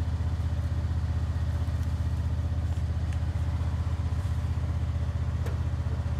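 All-terrain vehicle engine idling steadily, with an even low pulse.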